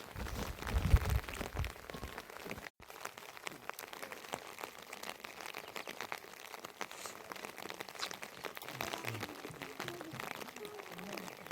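Rain falling, a dense irregular pattering of drops. Wind buffets the microphone with a low rumble for the first second or two.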